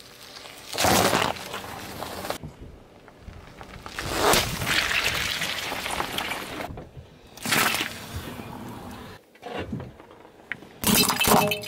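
A car tyre rolling over and crushing one object after another (a cucumber, a bag of water beads, plastic pipe fittings): about five short crushing bursts with quieter stretches between, the last one near the end.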